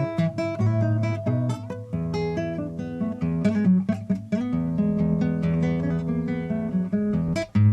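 Acoustic guitar playing a chamamé, with plucked melody notes over strummed chords that ring on.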